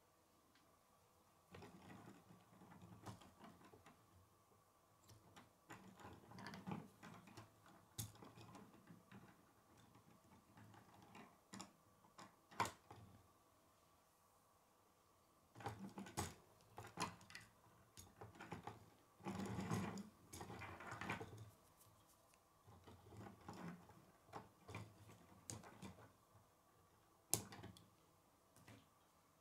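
Plastic K'nex model pieces clicking and rattling as the built mammoth is handled and turned on a wooden table. The clicks come in irregular bursts with quiet gaps, and a single sharp click comes near the end.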